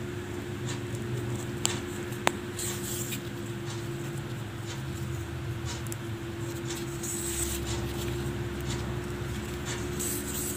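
Faint rustling and small clicks of hands handling yarn, needle and button while a button is sewn onto a crocheted piece, with a couple of sharp ticks about two seconds in, over a steady low hum.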